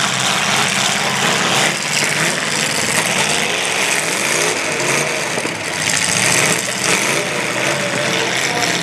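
Demolition derby car engines running and revving up and down in the mud, pitch rising and falling several times over a steady rushing noise.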